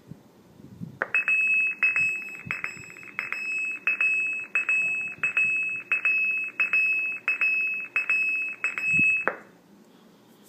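An electronic warning bell ringing, struck about one and a half times a second, starting about a second in and cutting off abruptly after about eight seconds.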